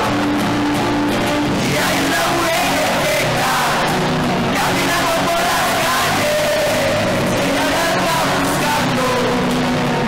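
A live band playing loud amplified music, with a singer's voice carrying a melody over it.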